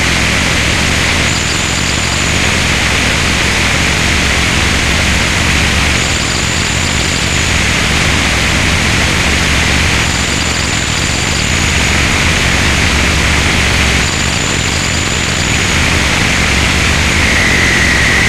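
Harsh electronic noise music: a loud, dense wall of static that covers everything from deep rumble to high hiss. A thin high whine comes in for about a second, roughly every four seconds.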